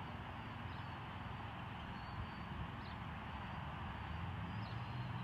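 Steady outdoor noise with wind rumbling on the microphone, and a few short, high bird chirps now and then.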